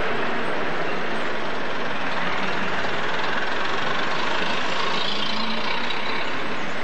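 Street traffic heard close up: the engines of a city bus, a lorry and cars running at a steady din.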